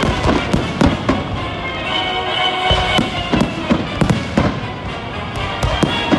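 Aerial fireworks shells bursting in an uneven string of sharp bangs, some in quick clusters, with music playing throughout.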